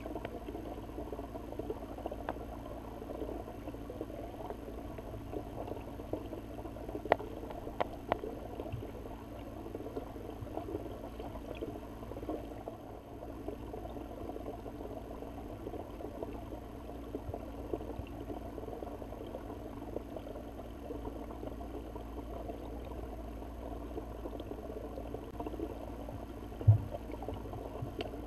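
Steady, muffled water noise picked up by a camera sitting underwater on a silty bottom, with a few sharp clicks and one short, loud low thump near the end.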